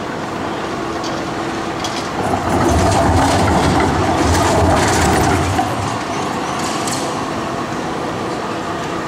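Melbourne A-class tram passing through a tram-track intersection: a rolling rumble that swells about two seconds in and eases after about five and a half seconds, with sharp wheel clicks as it runs over the crossing rails.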